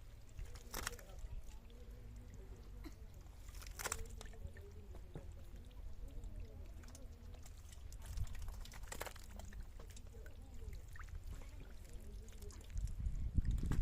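Water pouring and splashing in a few brief bursts, about three spaced several seconds apart, over a steady low rumble, with faint voices in the background.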